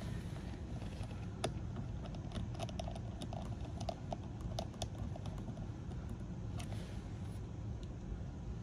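A run of small, light clicks and taps as fingers press on an opened ThinkPad X1 Carbon laptop's battery and chassis. They come mostly in the first half, over a steady low background rumble.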